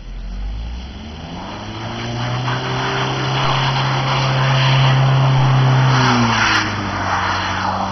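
Audi A4 1.9 TDI quattro's four-cylinder turbodiesel revving up and held at high revs as the car slides in circles on snow, with a hiss of spinning, sliding tyres. The revs drop about six seconds in.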